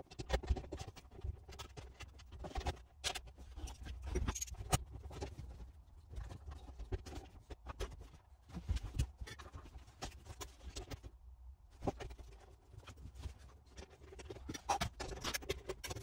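Irregular clicks, knocks and rattles of plastic and metal as a car's manual gear shifter housing and its shift cables are handled and fitted by hand.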